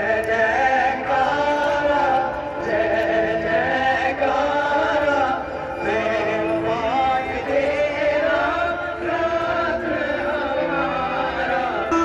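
Live band music with a male singer holding long, bending melodic notes over the accompaniment.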